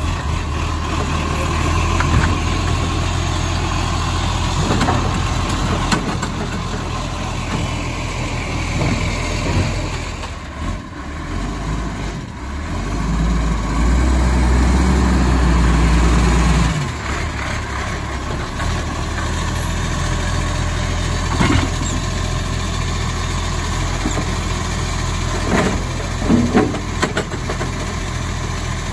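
Iveco Acco side-loader garbage truck's diesel engine running and idling as the truck moves up to the kerb, with the engine louder for a few seconds about halfway through. Several knocks near the end as the side-loader arm handles a bin.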